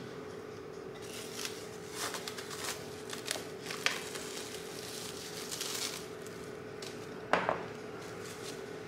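Plastic cling film crinkling in a run of short rustles as it is peeled off a glass mixing bowl, followed by a single louder knock about seven seconds in. A faint steady hum runs underneath.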